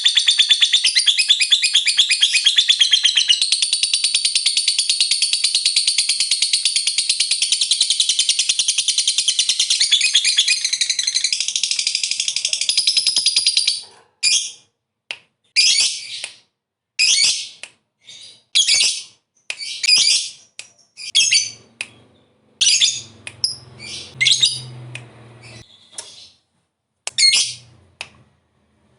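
Lovebird giving a long, rapid, shrill chattering trill (the 'ngekek panjang' prized by keepers) for about fourteen seconds. It then breaks into short, separate shrill chirps at about one a second.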